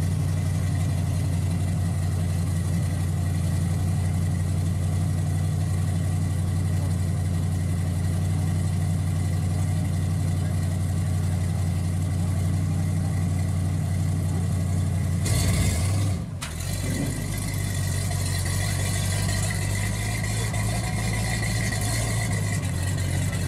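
1950 Ford F-1 pickup's engine idling steadily, then picking up about fifteen seconds in as the truck pulls away.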